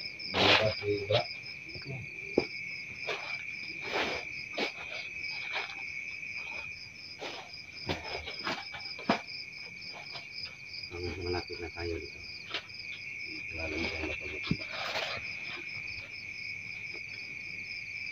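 Crickets and other night insects calling together: a steady high trill with a fast pulsing chirp above it. Scattered rustles and crunches of footsteps on dry leaf litter.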